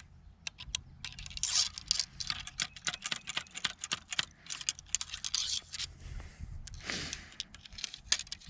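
Handcuff chain and metal parts clinking and rattling in a quick, irregular run of small clicks, mixed with scraping and rustling handling noises.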